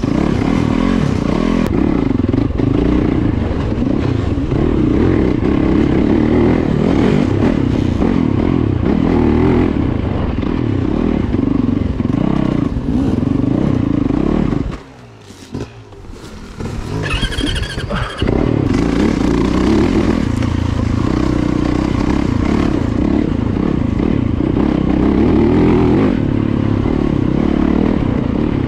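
Yamaha YZ dirt bike engine running on a woods trail, the throttle opening and closing as the bike is ridden, heard close up from the rider's seat. The sound drops away for about three seconds halfway through.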